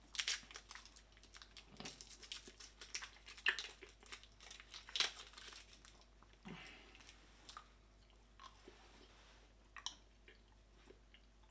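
Faint crackling of a candy wrapper being picked open, with close-up chewing of a coffee chew candy. The crackles come thickest in the first six seconds and thin out after.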